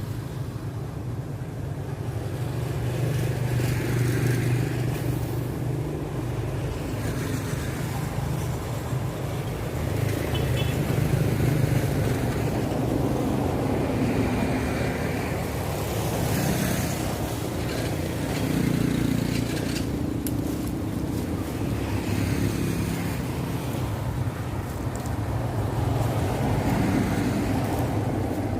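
Motor vehicle engine running steadily, a low uneven drone of road-vehicle noise.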